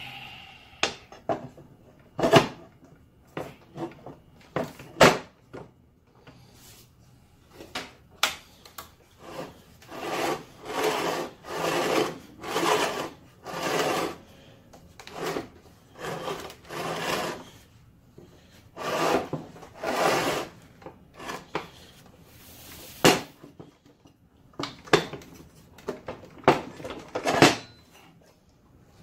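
Turntable of a Delta 10-inch compound miter saw swung back and forth on its base, a crunchy scraping in repeated strokes of about a second each. Sharp knocks and clicks come in between.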